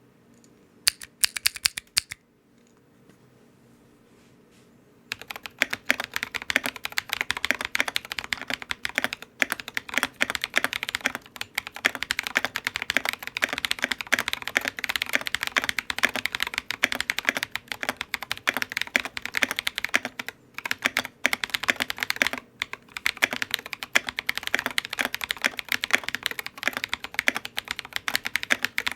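Typing on a Monstargear XO K80 mechanical keyboard fitted with lubed Drop Invyr Holy Panda tactile switches and Drop MT3 keycaps. A few keystrokes about a second in, a pause, then fast, continuous typing from about five seconds in.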